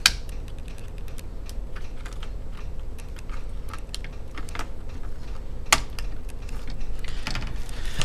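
Small plastic and metal clicks and taps as a laptop RAM module is pressed into its slot on the motherboard and the board is handled, with a sharp click at the start and a louder, sharper click a little before six seconds in.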